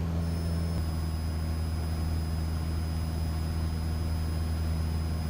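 Cessna 172's single piston engine and propeller droning steadily in level cruise, heard inside the cabin. A faint thin high whine runs alongside, and the drone settles slightly about a second in as power is set after levelling off.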